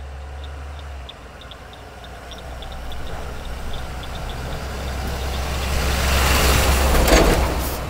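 A tow truck approaches and drives past close by. Its engine rumble and tyre noise grow steadily louder to a peak near the end.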